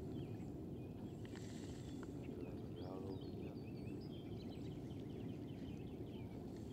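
Outdoor ambience: a steady low rush with small birds chirping over it, and a faint short call about three seconds in.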